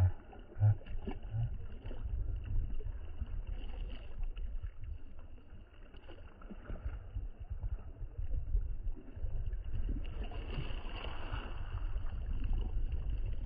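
Paddle strokes dipping and splashing in choppy lake water alongside a paddle board, over an uneven low rumble, with a few short low thumps in the first second or so.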